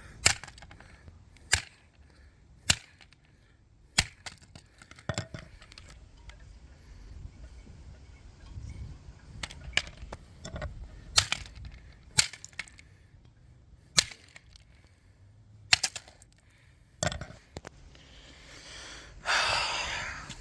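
Fire Angel SB1-R smoke alarm's plastic casing being smashed: about a dozen sharp cracking blows at irregular gaps of one to a few seconds. A longer noisy sound of about a second comes near the end.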